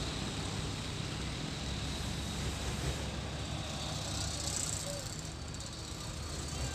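Steady vehicle noise: a constant low rumble under an even hiss.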